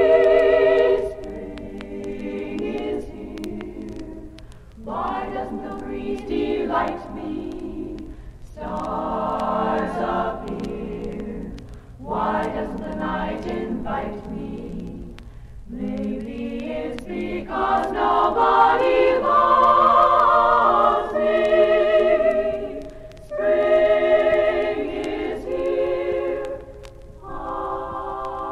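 Women's a cappella group singing slow close-harmony chords in sustained phrases, each a few seconds long with short breaks between, unaccompanied.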